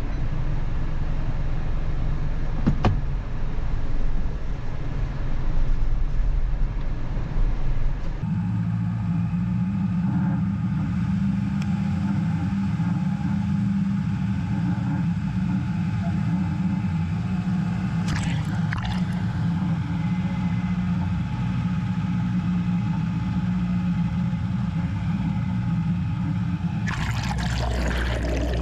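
Diesel engine of an Isuzu NPS 75/155 4x4 truck running steadily while driving, heard first from inside the cab and then, from about eight seconds in, from down beside the wheels as it crosses a shallow creek. Near the end a burst of splashing, bubbling water.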